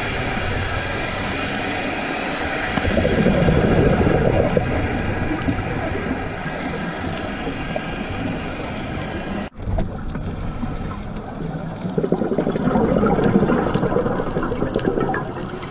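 Underwater sound from a diver's camera: a steady rushing hum with two swells of gurgling bubbles, typical of a scuba diver exhaling through the regulator. The sound drops out for an instant about nine and a half seconds in.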